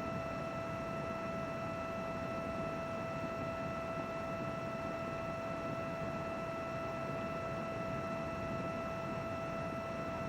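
Computer running with its cooling fans blowing steadily: an even rush of air with a constant whine over it.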